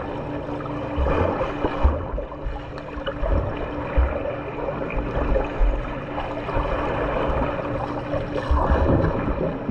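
Pool water splashing and churning as a swimmer swims freestyle, with irregular low thuds and a faint steady hum that drops out now and then.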